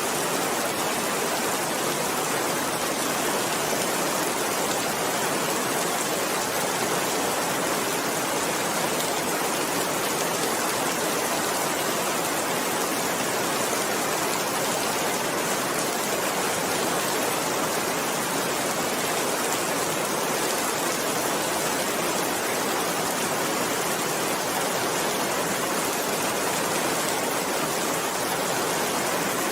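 Steady rain falling, an even hiss of many drops with no single drop or thunder standing out.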